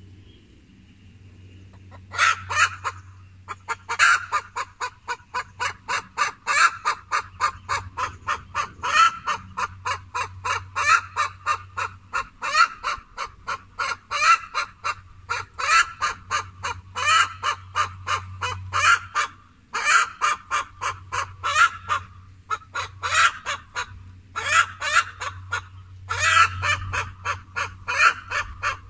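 Domestic geese honking in a rapid, steady series of about three honks a second, starting about two seconds in and going on with only brief pauses.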